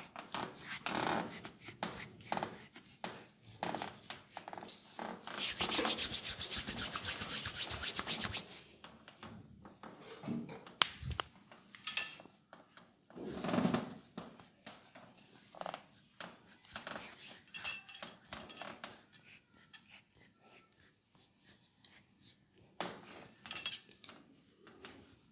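Hands massaging bare arm skin: rubbing and squeezing strokes, with a spell of rapid, even rubbing about five seconds in that lasts about three seconds, and a few sharp clicks and a soft thump later on.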